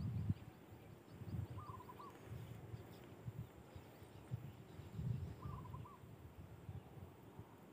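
A bird calling a short phrase of a few quick notes twice, about four seconds apart. Irregular low thumps on the microphone, louder than the bird, run under it.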